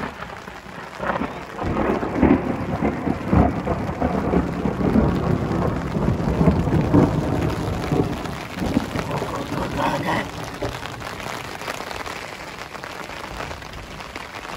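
Heavy rain drumming on a fabric canopy overhead, a dense spatter of drops on the taut cloth. It is loudest and deepest through the middle and eases near the end.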